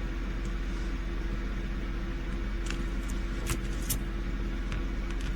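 Steady low background hum, with a few faint light clicks around the middle.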